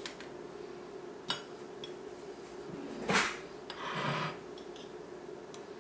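Metal offset spatula and ceramic plates handled as a small frozen cake is moved from one plate to another: a faint click, then a sharp clink of metal on plate about three seconds in, followed by a brief scrape as the spatula slides out from under the cake.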